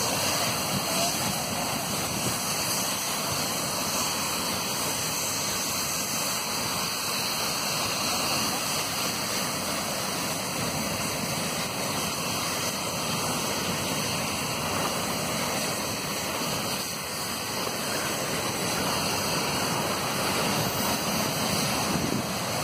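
Fire hose nozzle spraying a wide fan of water onto a burning hydrocarbon pool fire, a steady rushing hiss that does not let up.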